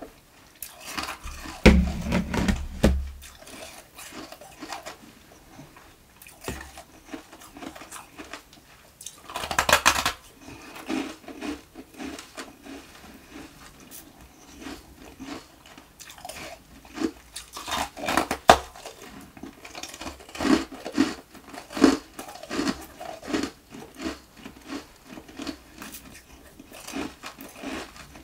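Close-miked biting and crunching of frosty ice nuggets. Loud cracking bites come about 2 and 10 seconds in, and a run of rhythmic chewing crunches follows later on.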